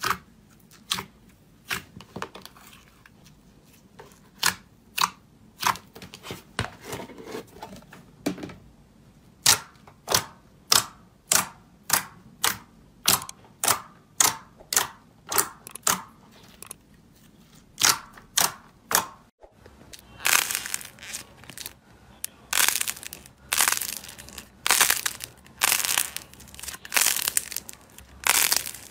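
Fingers poking and pressing into thick, glossy slime, each press giving a sharp click or pop, about one a second. About two-thirds of the way through it changes to denser, faster crackling and crinkling as slime is squeezed and worked by hand.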